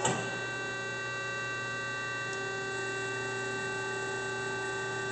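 W.F. Wells F-15 automatic horizontal band saw running under power with its blade stopped: a steady hum of several held tones while the shuttle carriage is moved back, with a click right at the start. One lower tone grows stronger about two seconds in.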